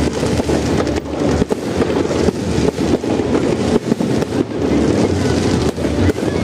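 Aerial fireworks going off in rapid succession: a dense, unbroken run of bangs and crackles with no pauses.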